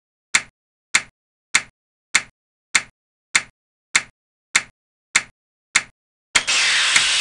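Animation sound effects: a sharp click about every 0.6 seconds, one for each CPU clock tick counted against the running process. Near the end comes a hissing burst of noise lasting just over a second, as the process reaches its 15-tick limit and is moved off the CPU to the back of the ready queue.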